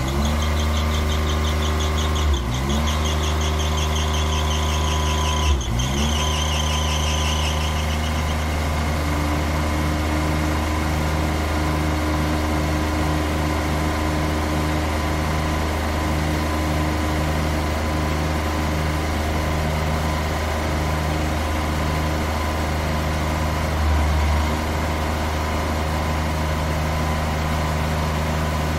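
Truck running with a steady low engine hum while its wheels give a high-pitched, fluttering squeal for the first eight seconds or so. After the squeal stops, the engine runs on with a slow regular pulse, about one a second.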